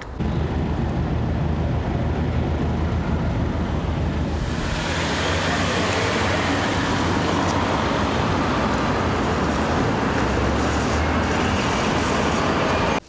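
Steady road-traffic or vehicle rumble, low and even, with a hiss that grows about four and a half seconds in, like a vehicle passing or picking up speed.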